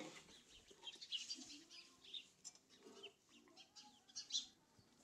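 Faint birds chirping: scattered short, high chirps, with a slightly louder one about four seconds in.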